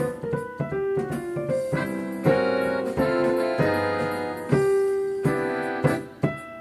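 Roland digital piano playing swing-style jazz: two-handed melody and chords with crisp note attacks, including a few longer-held chords partway through.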